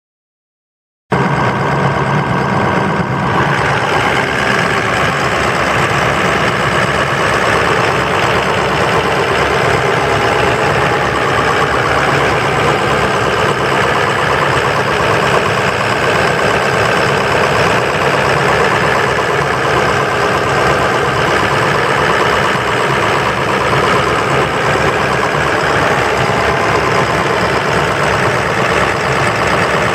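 2003 Ford F250's 6.0-litre Power Stroke V8 turbo diesel idling steadily with a rapid, even diesel clatter, heard close with the hood open; it cuts in abruptly about a second in.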